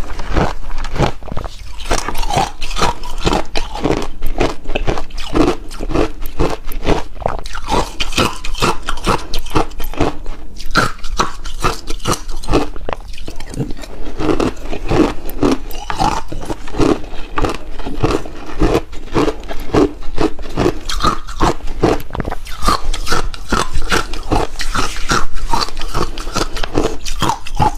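Close-up crunching and chewing of chunks of shaved, refrozen ice: rapid, continuous loud crunches as the ice is bitten and ground between the teeth.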